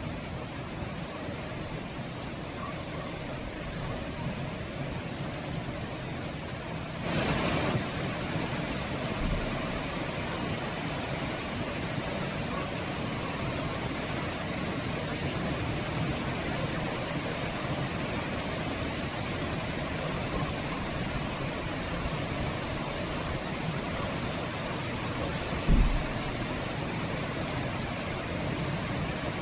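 Steady rain, an even hiss that grows louder about seven seconds in, with a short low thump near the end.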